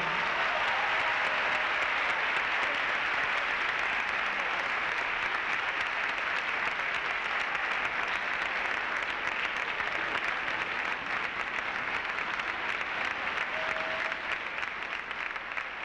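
Theatre audience applauding: dense, steady clapping that eases slightly near the end.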